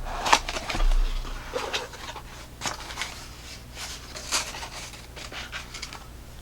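A flashlight's retail box being opened and its contents handled: a string of short, irregular scrapes, rustles and light taps.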